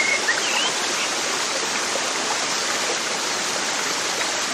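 Steady rush of running water, like a stream, with a few brief high bird chirps in the first second.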